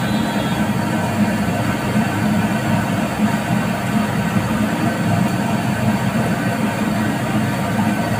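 Battered chicken deep-frying in hot oil in a wok: a steady, unbroken sizzle over a low rumble.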